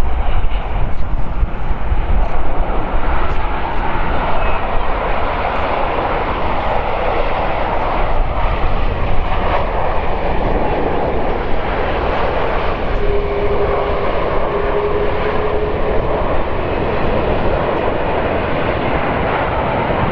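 Boeing 737 MAX 8's CFM LEAP-1B turbofan engines during the landing rollout just after touchdown. A loud, steady jet engine noise swells a few seconds in, typical of reverse thrust slowing the plane, and then gradually eases off.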